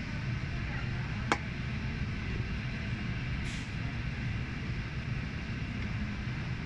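Steady low engine rumble, with one sharp click a little over a second in and a brief hiss about halfway through.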